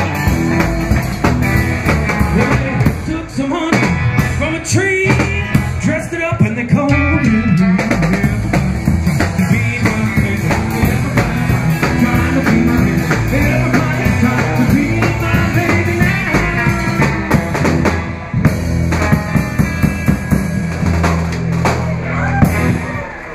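Rockabilly band music: a rock song with a drum kit, guitar and a singing voice.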